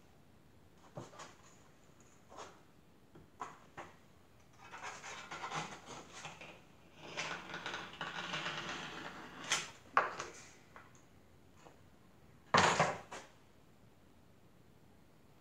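Wooden boards and a block of clay handled on a canvas-covered worktable: a few scattered soft knocks, two stretches of scraping in the middle, and a sharp clatter of wood near the end.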